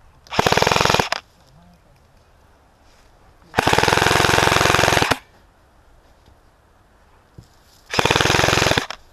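Airsoft M4 rifle firing three full-auto bursts: a short one, a longer one of about a second and a half, then another short one near the end. Each is a fast, even rattle of shots.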